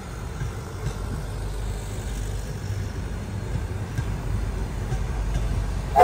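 Low, steady rumble of a passenger train rolling slowly past, growing a little louder as its P36 steam locomotives approach. A steam locomotive whistle starts blowing loudly right at the end.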